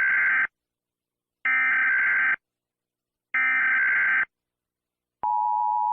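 Emergency Alert System SAME header: three bursts of harsh digital data tones about a second apart, the first already under way. Near the end the steady two-tone EAS attention signal begins, announcing the alert message that follows.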